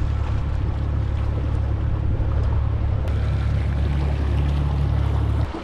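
Outboard motor of a small boat running steadily underway, a low drone under a rush of wind and water. It cuts off abruptly just before the end.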